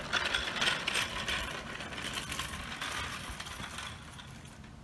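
Hard wheels of a homemade cart rattling and clattering as it rolls over an asphalt driveway, fading as it moves away.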